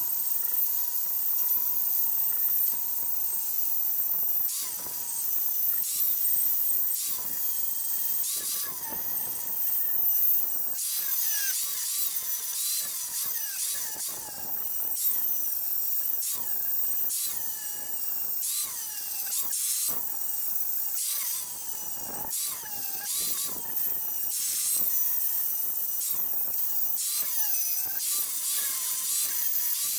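Power grinder grinding the steel edge of a four-way log splitter wedge clamped in a vise. Its whine dips each time the disc bites and recovers between passes, about once a second.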